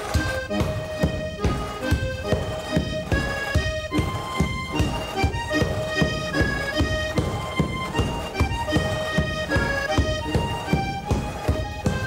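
Alpine folk tune played on diatonic button accordion over a steady beat of sharp knocks, about two a second.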